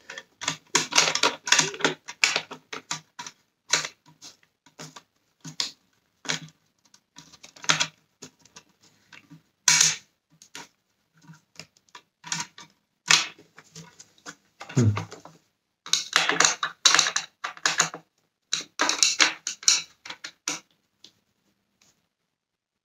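Irregular clicking and ticking of a Torx screwdriver working small screws into the plastic housing of a Dyson Cinetic Big Ball vacuum's cyclone unit, with the plastic parts knocking as the unit is turned in the hands. The clicks come in quick runs with short pauses between.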